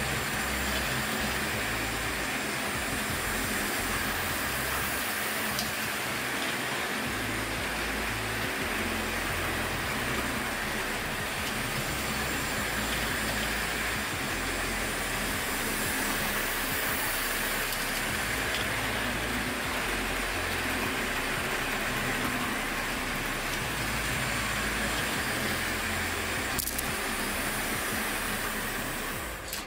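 Hornby 00-gauge model train running steadily around the track, two small electric tank locomotives hauling breakdown crane wagons: the even running noise of the motors and of the wheels on the rails. A single click near the end.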